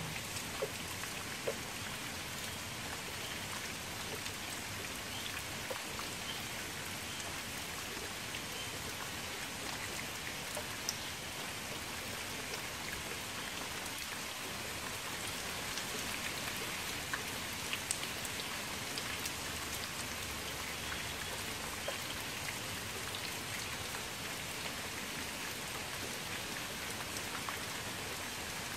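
Steady rain falling onto a shallow pool of standing water: a constant even patter, with now and then a single louder drop standing out.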